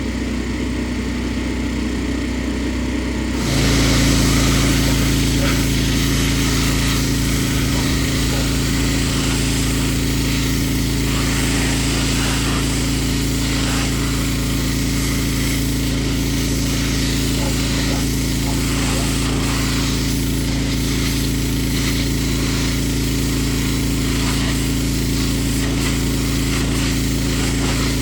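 Pressure washer's engine running steadily; about three and a half seconds in, a loud hiss of spraying water joins it and the engine note changes as it takes up the load, then both run on steadily.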